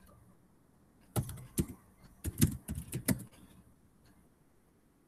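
Typing on a computer keyboard: a quick run of about a dozen keystrokes starting about a second in and stopping after about two seconds.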